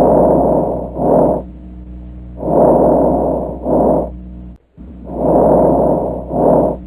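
Normal vesicular breath sounds on lung auscultation: three breath cycles, each a longer soft rustling on breathing in followed by a shorter, fainter one on breathing out, with a low steady hum beneath.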